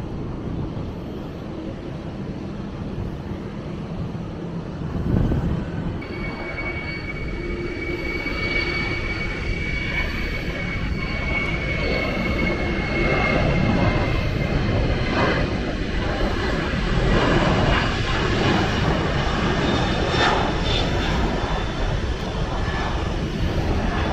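Jet airliner engines running at close range: a low rumble throughout, with a steady high whine that comes in about six seconds in and grows slightly louder.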